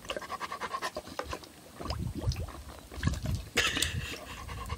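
Dog lapping water from a plastic bowl: a run of quick, irregular wet laps. About three and a half seconds in it lifts its head with a louder burst, water dripping from its chin, and begins panting hard.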